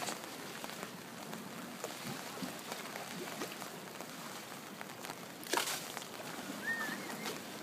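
Pool water sloshing and splashing as dolphins swim, with one louder splash about five and a half seconds in and a brief chirping whistle soon after.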